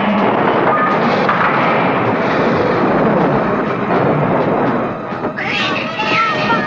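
Cartoon sound effects: a dense noisy din for about five seconds after a club strikes a lever mechanism, then a cartoon baby unicorn's high wavering cries near the end.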